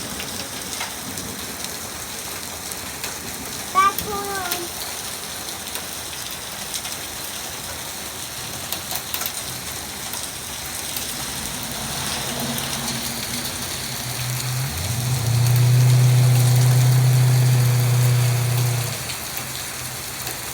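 Heavy rain mixed with hail pelting down, a steady hiss with scattered sharp ticks. About two-thirds of the way through a low steady hum swells in, holds for several seconds as the loudest sound, and stops shortly before the end.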